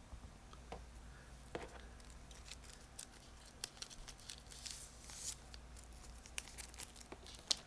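Foil Pokémon booster pack wrapper being torn open and crinkled, with irregular crackles and a few longer rustles.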